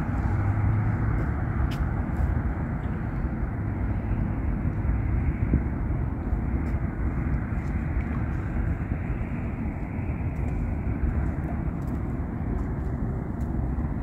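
Steady low rushing noise of an outdoor field recording, heaviest in the low end, with a few faint clicks.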